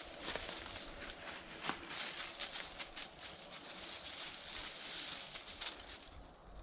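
Footsteps moving through vegetation, an uneven run of rustles and crackles with a few sharper snaps.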